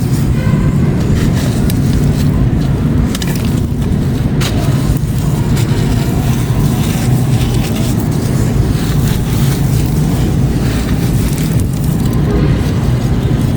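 Chunks of grey concrete crumbling and crunching close to the microphone, with a few sharp crackles among a dense, steady low rumble.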